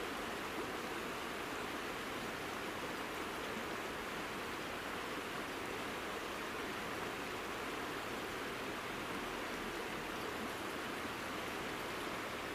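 Steady, even rush of flowing water from a mountain stream, with no other event standing out.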